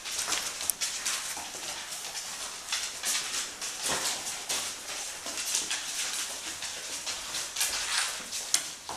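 Young Australian Labradoodle puppies wriggling against each other on a fabric blanket: a steady rustling of fur and cloth with many small scuffs and clicks.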